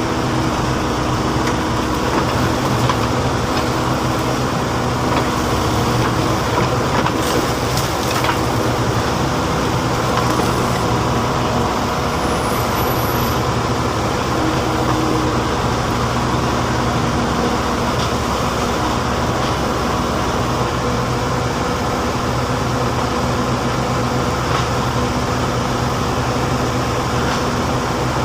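Backhoe loader's diesel engine running steadily under work, an even low hum that holds its level.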